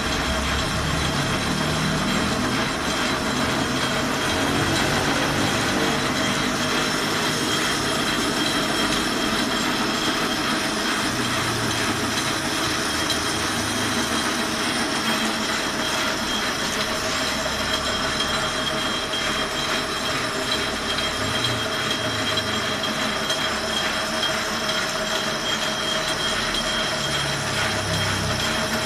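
Metal lathe running steadily while turning a steel bar: an even mechanical noise with two steady whining tones, one middling and one high.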